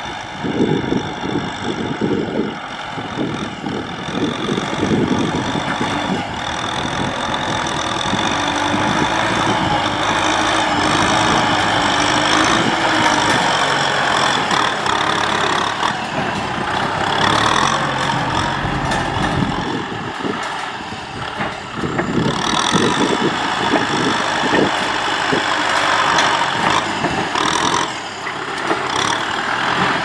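Kubota M6040SU tractor's four-cylinder diesel engine running under load while pulling a disc plough through sandy soil, with a couple of brief dips in level.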